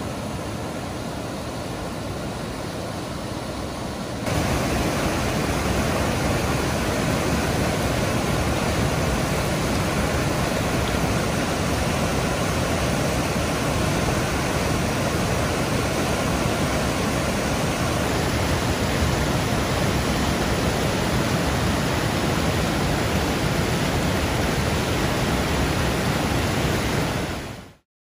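Whitewater of a mountain river rushing through granite cascades, a steady rush of water. It grows louder about four seconds in and stops abruptly near the end.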